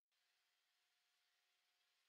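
Near silence: only a very faint, steady hiss.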